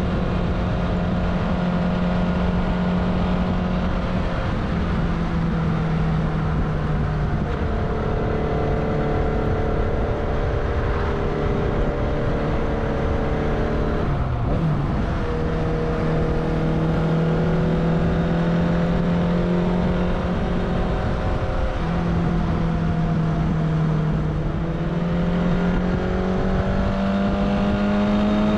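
Kawasaki GT 550's air-cooled inline-four engine running on the move at a steady cruising pace, with wind noise underneath. The engine note dips briefly a few times, drops and picks up again about halfway through, and climbs steadily near the end as the bike accelerates.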